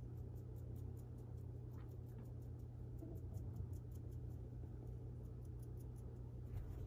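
Faint, quiet handling: soft rubbing as a sponge dabs sealer onto a vinyl doll limb, over a steady low hum and a fast, faint, even ticking.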